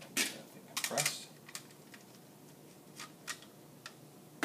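Clicks and knocks of a momentum cart being handled on a lab bench. A few sharp knocks come in the first second or so, then a few light ticks about three seconds in.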